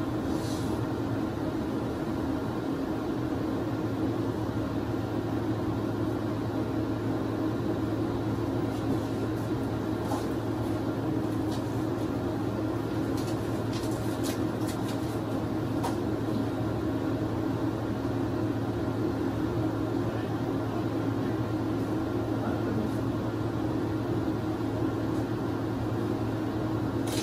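Steady low machine hum with a few faint clicks about halfway through.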